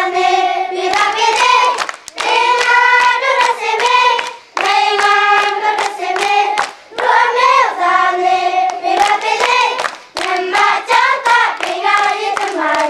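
A group of children singing a song together in phrases with short breaks, clapping their hands in time with it.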